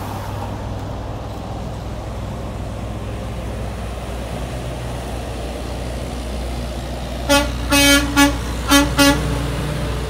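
Semi truck's horn honking in five short blasts near the end, given in answer to a fist-pump request to honk, over the steady low rumble of the truck's engine running as it pulls by.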